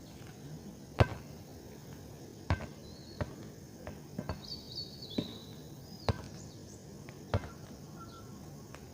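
About seven sharp clicks or knocks at uneven intervals, the loudest about a second in, over short high bird chirps and trills.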